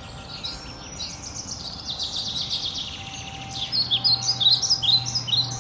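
Small songbirds singing and chirping in quick high trills and twitters, busiest and loudest over the last two seconds or so.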